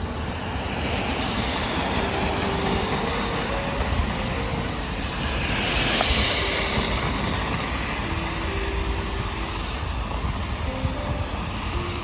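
A vehicle passing on a city street, its noise swelling to a peak about halfway through and then fading, over soft background music with short held notes.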